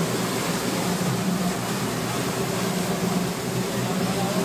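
Boat's engine running steadily under way, a low even hum beneath a constant rush of wind and churning wake water.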